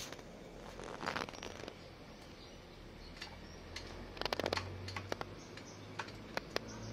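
Small metal parts clicking and tapping as they are handled by hand at the scooter's exhaust mount, with a short rustle about a second in and a quick cluster of clicks around four seconds in.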